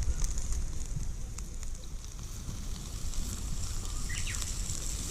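Wood campfire crackling, with scattered sharp pops over a steady high hiss and a low rumble underneath.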